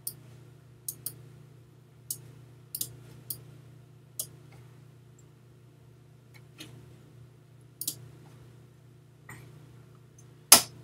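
Irregular computer mouse clicks and keyboard key presses, about a dozen in ten seconds, the loudest just before the end, over a low steady hum.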